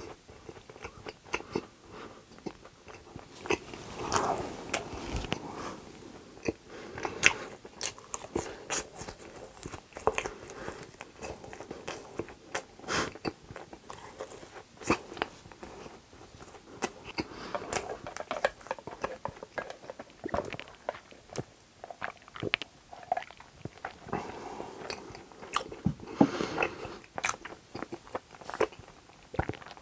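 Close-miked chewing of soft donuts, with many irregular sharp mouth clicks and smacks.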